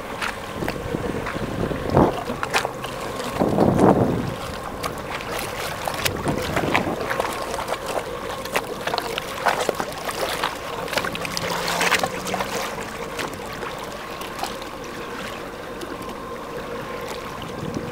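Jet ski engine running at a steady pitch, with wind buffeting the microphone in irregular loud rushes.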